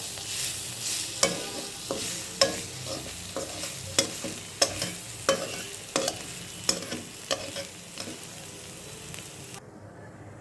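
Greens stir-frying in a pan: a steady sizzle with sharp clacks of a spatula against the pan about one and a half times a second. The sizzle cuts off abruptly near the end.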